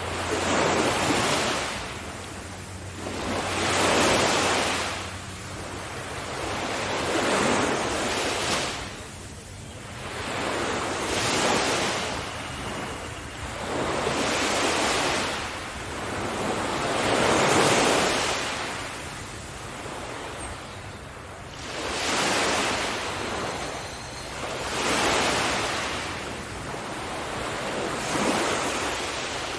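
Ocean surf: waves breaking one after another, each swell of rushing water rising and fading about every three to four seconds.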